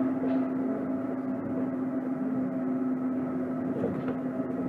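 Tama Toshi Monorail 1000 series car heard from inside: a steady hum from the train's motors and running gear, holding one even pitch with no rise or fall.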